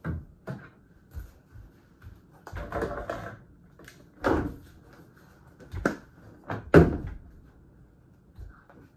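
Handling toiletries at a bathroom cabinet: a string of separate plastic clicks and knocks as items are taken off the shelves and a deodorant stick's cap is worked, with the sharpest click about two-thirds of the way through.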